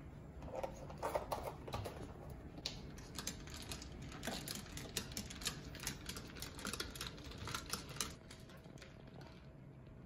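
Metal straw stirring an iced oat-milk latte in a glass, clinking against the glass and ice in a quick, irregular run of light clicks that stops about eight seconds in.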